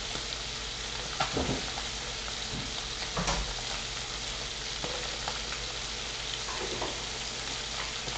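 Bone-in chicken thighs and drumsticks sizzling skin side down in an electric skillet set to 400 °F: a steady, loud hiss of frying fat with a few sharp pops about one, three and five seconds in.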